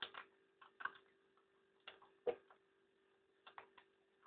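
Fox terrier eating dry food from a plastic bowl: irregular crunches and clicks of chewing and of kibble knocking the bowl, the loudest a little over two seconds in. A faint steady hum runs underneath.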